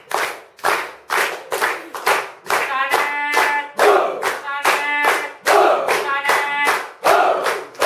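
Rhythmic hand clapping, about two to three claps a second, keeping a steady beat. Voices sing along in held notes through the middle.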